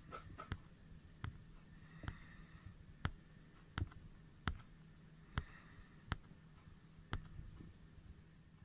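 A series of about ten sharp camera shutter clicks, roughly one a second, as photos are taken one after another.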